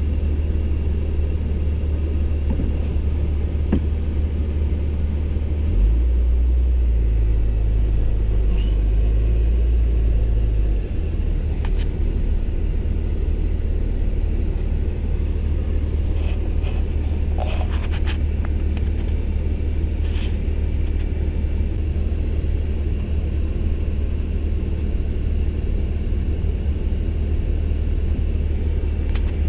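Four-wheel-drive pickup truck driving on snow: a steady low engine and road rumble. About six seconds in, the rumble deepens and grows louder for roughly five seconds, then settles back.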